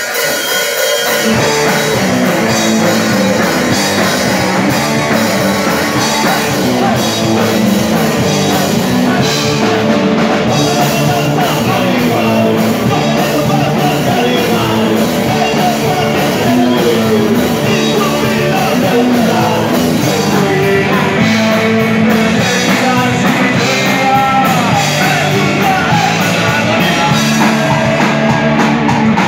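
Punk rock band playing loud and live: electric guitar and drum kit, with the full low end coming in about a second in.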